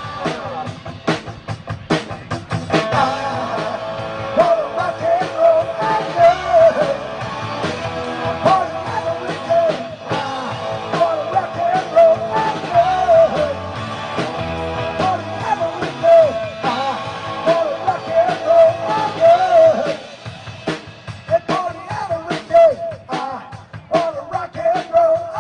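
Rock song with singing and a drum kit, a sparser passage starting about 20 seconds in.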